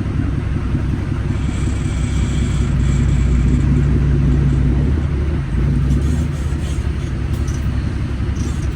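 Semi truck's 600-horsepower Cummins diesel engine running with a steady low rumble. It swells louder from about two seconds in, then dips briefly about five and a half seconds in.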